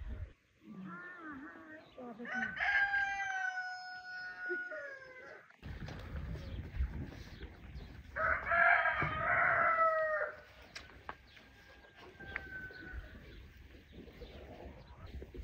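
A rooster crowing twice, each crow a long call of two to three seconds that falls away at the end.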